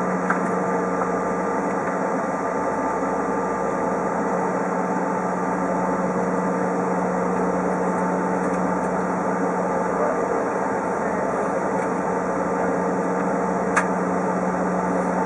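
Cabin noise of a Bombardier CRJ-700 taxiing, heard from inside: a steady hum from its rear-mounted turbofan engines and air system, with several held tones, and a single sharp click near the end.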